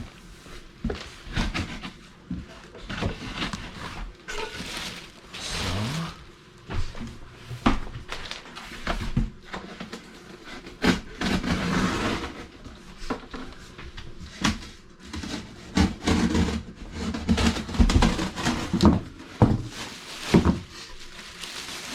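A cardboard box being cut open and unpacked: scraping and rustling of cardboard and packaging, with scattered knocks and thumps.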